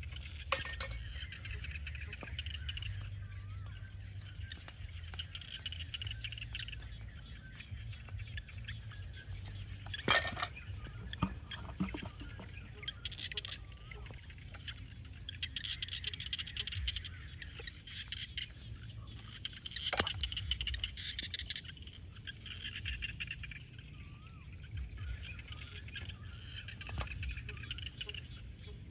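Outdoor rural ambience: a steady low rumble, a high insect buzz that swells and fades, and a few faint bird chirps. Over it come a handful of sharp knocks, the loudest about ten and twenty seconds in, as a live eel and a wooden chopping board are handled on bare ground.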